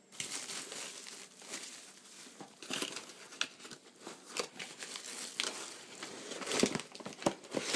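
Crumpled packing paper and bubble wrap rustling and crinkling as hands rummage through a cardboard shipping box, with irregular sharp crackles.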